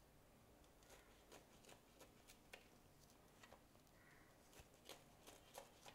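Faint knife strokes cutting through a thick, spongy mung-lentil roti: scattered soft scrapes and light taps of the blade against the plate.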